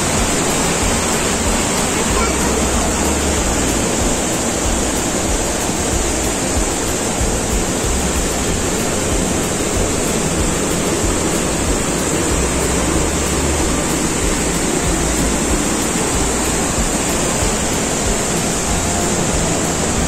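The Peguche waterfall: water falling in a steady, unbroken rush.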